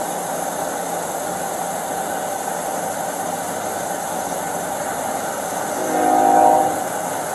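Steady hum of an idling car engine and road noise, with a train horn sounding once near the end: a chord of several steady tones lasting under a second.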